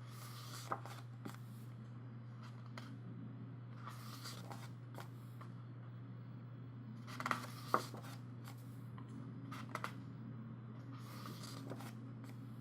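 Glossy pages of an album photo book being turned by hand, a paper swish with a light flap about every three to four seconds and a few soft clicks, over a steady low hum.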